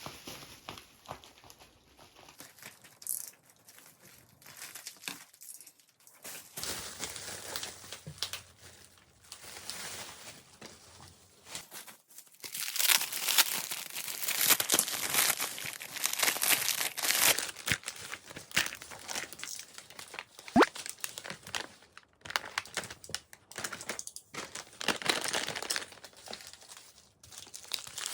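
Packaging crinkling and rustling as it is handled, with some tearing, loudest for several seconds in the middle.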